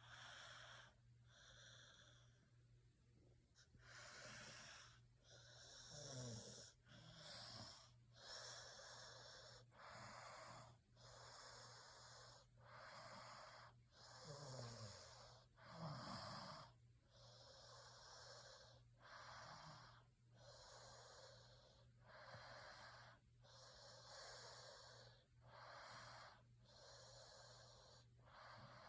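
Snoring: wheezy breaths in and out at a quick, even pace, about one a second, with a few falling squeaky snorts about six seconds in and again past the middle. A faint steady low hum runs underneath.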